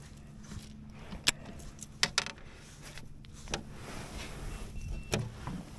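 Scattered sharp clicks and knocks of gear being handled aboard a fishing kayak as a just-caught fish is dealt with, over a faint steady hum.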